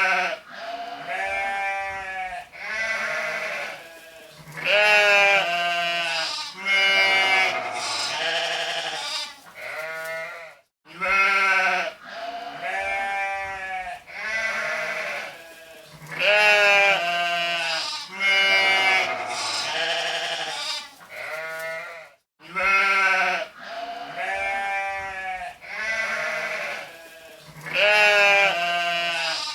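Sheep bleating over and over, one call after another with short gaps, each call bending in pitch. The same run of bleats repeats about every twelve seconds, as a loop.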